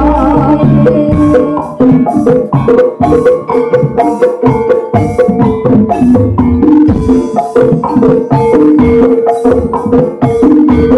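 Ebeg dance accompaniment: struck pitched bars repeating a short figure over a dense pattern of drum strokes. A sung line trails off just at the start.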